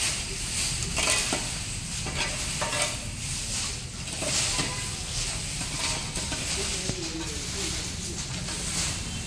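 Stick brooms and a spade scraping dry fallen leaves and grit across hard dirt ground: repeated scratchy, rustling strokes.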